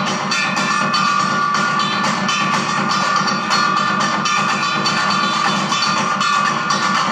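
Found-object percussion ensemble drumming live on trash cans and other junk objects: a dense, fast stream of hits with some ringing metal tones.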